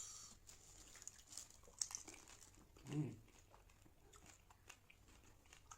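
Faint crunching and chewing of crisp golgappa (pani puri) shells, with scattered small clicks. A brief low vocal sound about three seconds in is the loudest moment.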